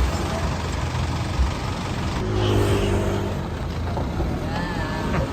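A motor vehicle's engine running and revving, with continuous heavy mechanical noise.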